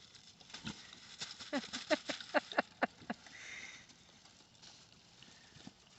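Pigs grunting in a quick run of about eight short calls, each falling in pitch, between one and three seconds in, then a brief rustle.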